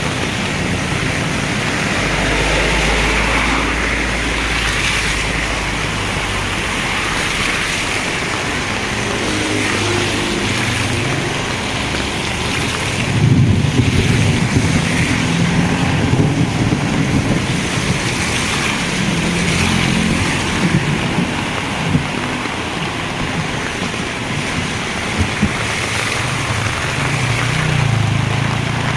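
Heavy rain pouring down in a steady hiss, with a low rumble rising under it about halfway through.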